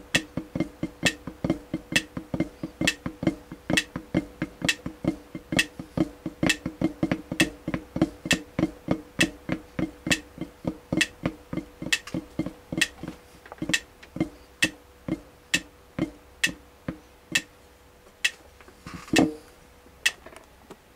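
Drumstick strokes on a drum head, each with a short pitched ring. The strokes come about four a second at first, then slow and space out in the second half, with one louder hit near the end.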